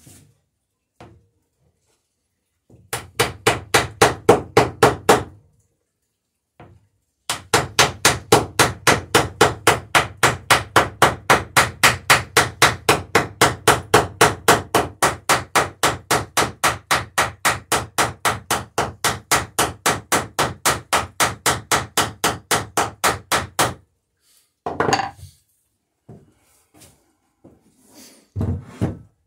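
Hammer peening rivets through a dory's lapped wooden planking: rapid, even strikes, about four a second. A short run comes about three seconds in and a long run follows from about seven seconds in, and a few scattered knocks come near the end.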